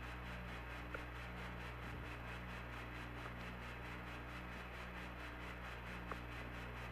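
Steady hiss and low hum of the Apollo 11 air-to-ground radio recording between transmissions. Faint low tones drop out and come back about once a second, with a couple of tiny clicks.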